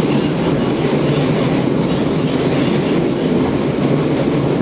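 Running noise heard inside a JR West 115 series electric train's motor car while it travels along at steady speed: a steady drone of traction motors, gearing and wheels on the rail.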